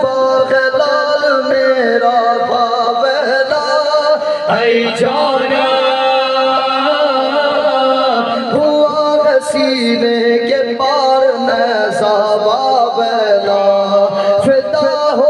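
Male voices chanting a noha, a Shia mourning lament, in long held, wavering notes, with a few sharp knocks now and then.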